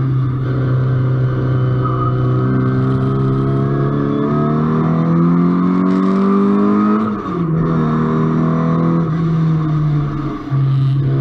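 Car engine heard from on board under acceleration on a race track. The revs climb for about five seconds, then drop sharply with a brief dip about seven seconds in, as at a gear change. The engine pulls on steadily after that, with another short break in the note near the end.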